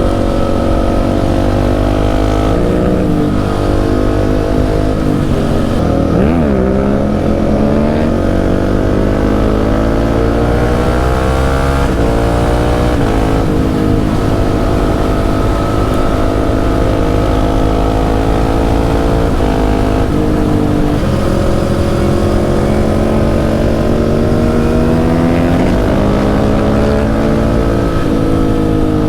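Motorcycle engine under way. Its pitch climbs and falls with the throttle and the gear changes, with a quick dip and rise about six seconds in.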